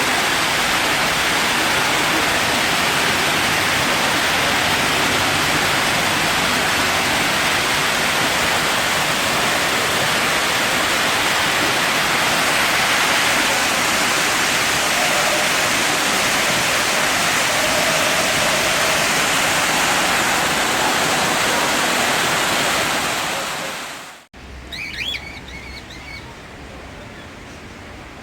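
Steady, loud rush of falling water that fades away about four seconds before the end. After it, a quieter background with a few short bird chirps.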